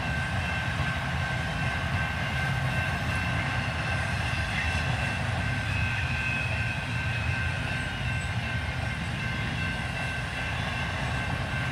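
Intermodal freight train's container cars passing fast over a grade crossing: a steady rumble of wheels on rail, with steady high-pitched tones above it. Heard from inside a car.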